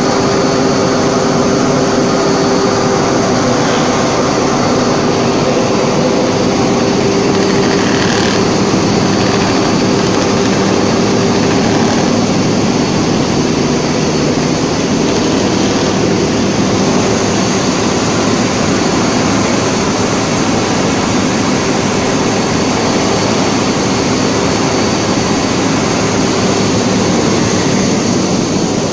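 Double-roller, two-touch textile polishing machine running: a loud, steady machine noise with a constant hum.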